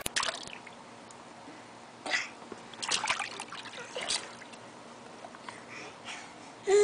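Water splashing and trickling in a shallow plastic paddling pool as babies and a hand move in it, in several short splashes at about 2, 3 and 4 seconds in. A baby's voice starts at the very end.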